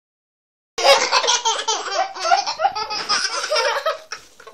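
A young child laughing hard in a run of short peals, starting just under a second in and tailing off near the end.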